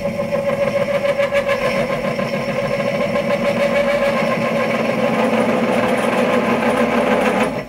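A 29/64-inch drill bit cutting into a part spinning on a Sherline lathe at about 420 RPM, hand-fed from the tailstock: a loud, steady, pitched chatter, kind of noisy, that stops abruptly near the end.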